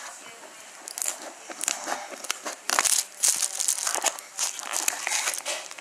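Clear plastic wrap crinkling and crackling in irregular bursts as it is handled and cut open with scissors.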